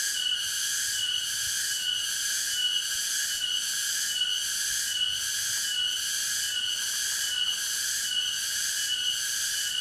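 An insect calling in a shrill, pulsing buzz, repeating evenly about four times every three seconds without letup.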